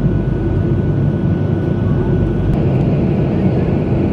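Boeing 737-800 cabin noise during the arrival: a steady, loud low rumble of the CFM56-7B engines and rushing airflow heard from a seat over the wing, with a faint thin whine above it.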